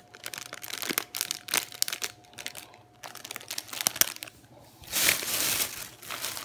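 Plastic shopping bag and a packaged hot dog's clear plastic wrapper crinkling as they are handled: a run of small crackles, with a denser stretch of rustling about five seconds in.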